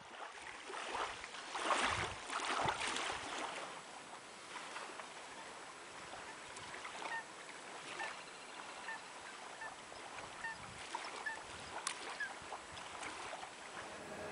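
Lagoon ambience: water lapping and splashing, with a series of short, high waterbird calls repeated through the middle of the stretch.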